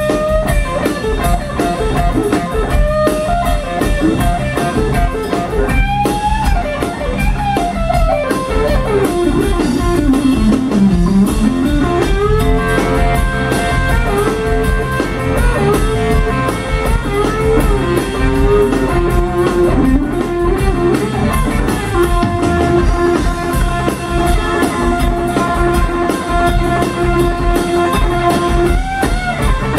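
Live blues band: electric guitar playing a lead solo with string bends over electric bass and a drum kit. About three-quarters of the way through, the guitar holds one long note for several seconds.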